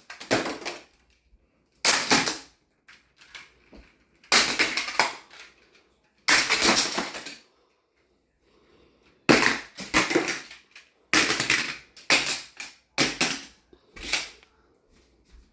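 Plastic magnetic building tiles clattering and crashing together, in about ten separate bursts, each lasting under a second or so.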